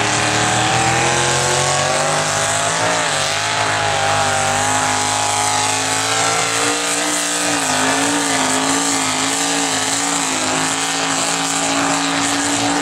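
Mud truck engine revving high and held near wide open, its pitch rising over the first couple of seconds and then wobbling up and down as it runs flat out.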